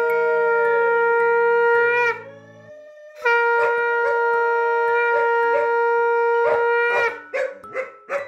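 Conch shell (shankha) blown in two long, steady blasts, the first ending about two seconds in with a wobble in pitch, the second starting after about a second's pause. It breaks off into a few short, broken sounds near the end.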